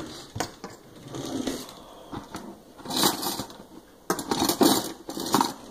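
A person chewing crispy oven-baked seasoned potato wedges close to the microphone, crunching in irregular bursts, with a loud spell near the end.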